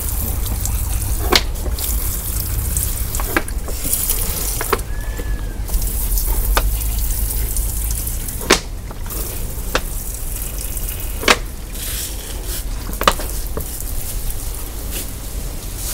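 Water sprinkling from a plastic bottle with holes punched in it onto leaves and soil: a steady hissing spray, with several sharp clicks scattered through it.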